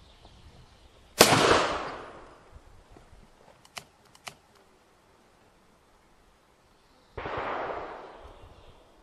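Colt 1860 Army .44 percussion revolver firing black-powder paper cartridges: a sharp, loud shot about a second in with a long echoing tail, two light clicks around four seconds, then a second, quieter shot about seven seconds in.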